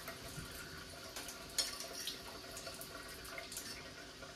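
A few light clicks of a metal fork against a ceramic bowl, over a faint steady hiss and hum.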